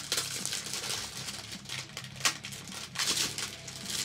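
Cellophane wrapper crinkling in irregular bursts as it is pulled off a small tin, with one sharp click a little after two seconds in.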